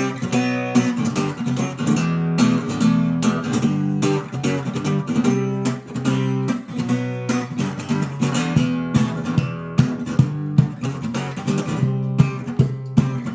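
Acoustic guitar played fingerstyle, with plucked melody and bass notes mixed with sharp percussive knocks on the strings and body.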